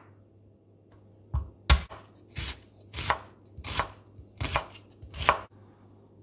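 Chef's knife chopping garlic cloves and then cutting an onion on a wooden cutting board: about nine sharp knife strikes on the board, roughly one every two-thirds of a second, stopping about five and a half seconds in.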